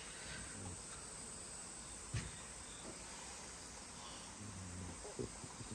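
Faint, steady chorus of insects chirring in the background, with a single sharp click about two seconds in.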